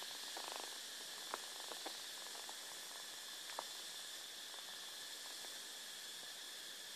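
Faint steady hiss with a few soft clicks and taps as two kittens scuffle on a fabric couch.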